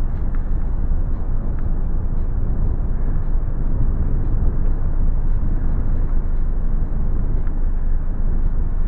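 Steady low rumble of wind and riding noise on the microphone of a camera carried on a moving bicycle, with faint light ticks and rattles.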